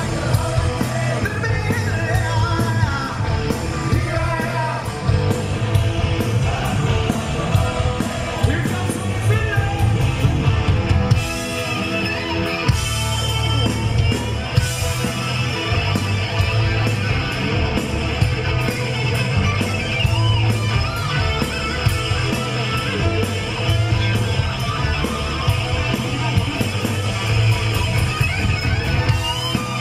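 A hard rock band playing live and loud: distorted electric guitars, bass guitar and drums, with singing and shouted vocals.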